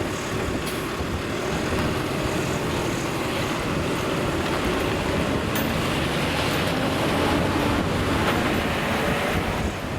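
Railroad maintenance truck's engine running steadily: an even rumble with no beeps or bell strokes.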